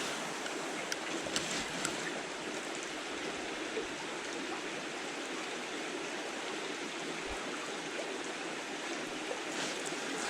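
Small creek running steadily over rocks, an even rushing and burbling of water, with a few faint ticks in the first couple of seconds.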